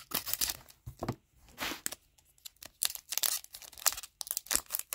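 A hockey card pack wrapper being torn open and crinkled by hand: a run of short, irregular scratchy rustles with brief pauses between them.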